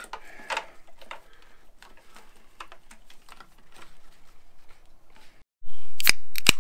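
Light, scattered clicks and small rattles of wiring and plastic connectors being handled and tucked in around a motorcycle battery. About five and a half seconds in, the sound drops out for a moment, then comes back much louder with two sharp knocks.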